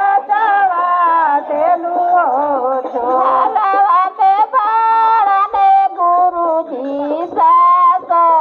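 A woman singing a devotional song into a microphone, amplified through a PA system. A continuous, wavering melodic line.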